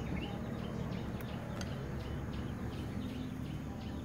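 Small birds chirping again and again, short high calls, over a steady low rumble of wind on the microphone.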